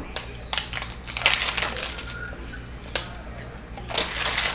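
Foil trading-card pack wrappers crinkling as they are handled, with a few sharp clicks among them; the crinkling comes in two stretches, about a second in and again near the end.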